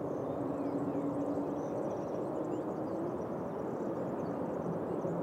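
Airbus A330 airliner's jet engines on final approach with the landing gear down: a steady rumble carrying a humming tone that gives way to a lower one about four seconds in.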